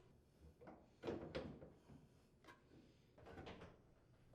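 Faint knocks and scrapes of a dryer's sheet-metal front bulkhead being handled and seated on the cabinet frame, the loudest knock about a second in, then a click and some scraping.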